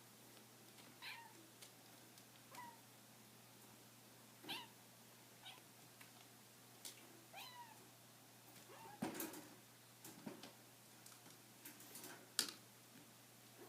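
Kittens mewing in short, high calls, about eight of them spread out. A cluster of light knocks and clicks comes in the second half, the sharpest one near the end.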